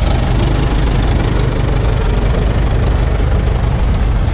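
Antique tractor engines running steadily at an even speed: a loud, unbroken low rumble.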